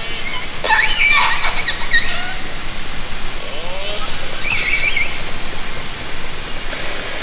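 Southern Resident killer whales (orcas) calling underwater, heard through a hydrophone: a pulsed call that bends up and down in pitch about a second in, a short high buzz of clicks around three and a half seconds, then another shorter call, over a steady water hiss.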